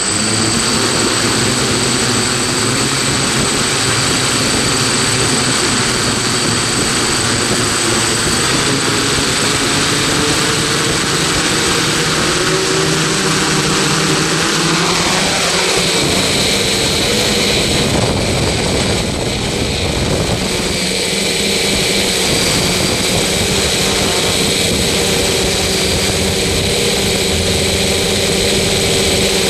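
Loud, steady motor or engine noise that starts abruptly, with a falling sweep in pitch about halfway through.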